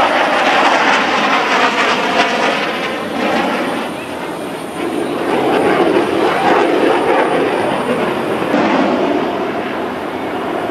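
Jet engine noise of fighter jets flying past, a loud steady rushing that eases slightly about four seconds in and swells again a second later.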